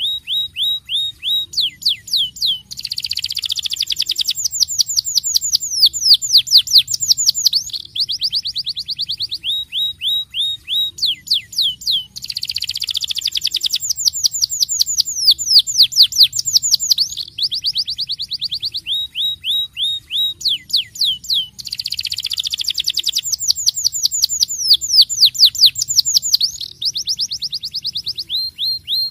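Domestic canary singing loudly and without a break: long rolling trills of rapid notes, many of them sweeping down in pitch, with the same sequence of phrases coming round about every nine to ten seconds.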